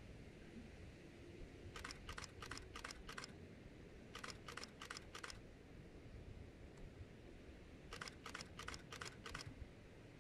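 Camera shutter firing in three short bursts of continuous shooting, five or six quick clicks in each burst, about three a second.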